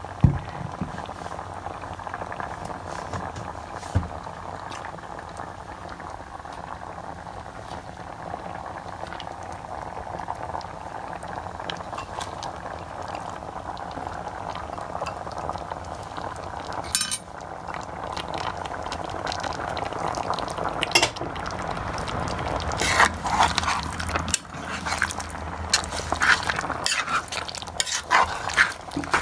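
Chicken curry simmering in a pan with a steady bubbling. In the last third a spoon clatters and scrapes against the pan as it is stirred.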